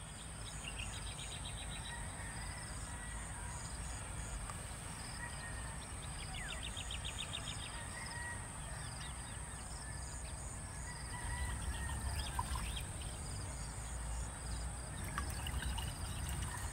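Rural morning ambience: a steady high insect drone, with birds chirping and giving short rapid trills, over a low rumble. Near the end, hot water is poured from a steel vacuum flask into a mug.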